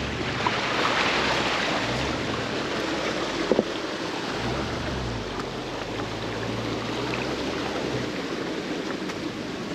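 Land Rover LR3 fording a river: a steady rush of splashing water over the engine, whose note rises and falls with the throttle. There is one sharp knock about three and a half seconds in.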